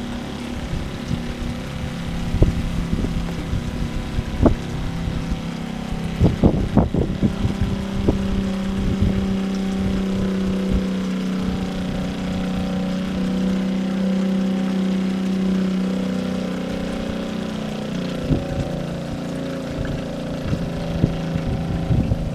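Remco 5537 12-volt on-demand pump running steadily with an even motor hum, pushing rainwater through the filter board. Irregular clicks and knocks come through in the first ten seconds, and the hum drops slightly in pitch about sixteen seconds in.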